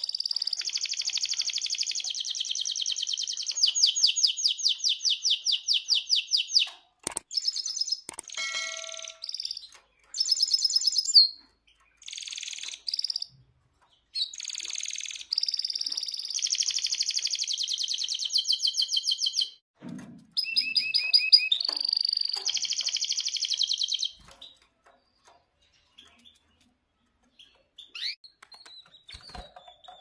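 Domestic canary singing: long phrases of rapid, evenly repeated trills and chirps with short pauses between them, stopping about 24 seconds in.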